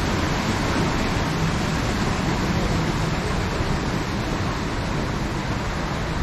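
Steady rushing of water churned by the side paddle wheels of the paddle steamer Blüemlisalp as it pulls away, easing slightly near the end.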